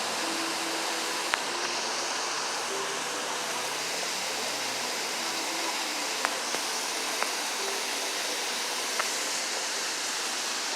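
Steady downpour of rain, an even hiss throughout, with a few single sharp ticks scattered through it.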